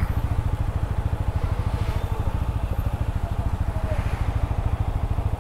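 TVS Apache RTR 200's single-cylinder engine idling at a standstill, its exhaust beating in a steady, rapid, even pulse.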